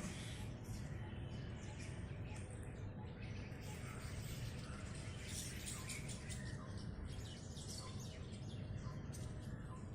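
Many birds chirping at once, a dense overlapping run of short high chirps, over a steady low rumble.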